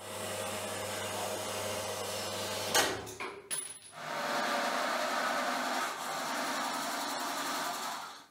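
Metal-cutting band saw running and cutting through a steel flat bar, a steady hum with cutting noise. About three seconds in there is a short clack and a few knocks, then the saw runs on until it cuts off just before the end.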